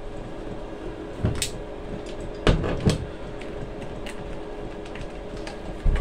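Bottles being handled and knocked on a window sill as a fuel line is moved from one to another: a clunk about a second in, two near the middle and one near the end. Under them runs the steady hum of a Chinese diesel heater.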